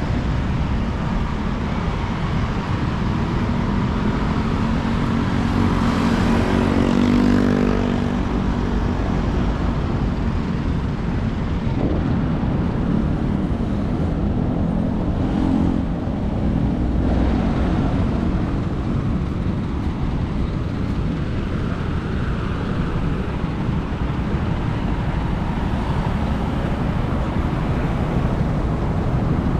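Motor vehicle on the road: a steady engine and road-noise rumble in street traffic, with an engine note that swells louder around seven seconds in.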